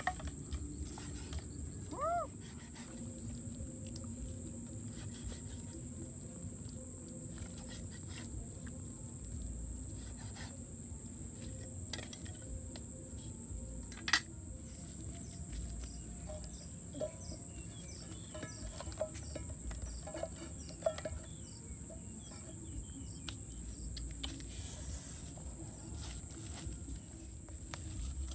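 Cleaver cutting pork on a wooden chopping block: irregular light knocks, with one sharper knock about 14 seconds in. A steady high-pitched insect drone runs underneath, and a short bird call comes about two seconds in.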